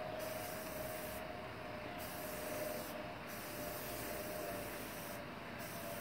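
Aerosol spray-paint can spraying in four bursts, each a second or two long, with short pauses between them.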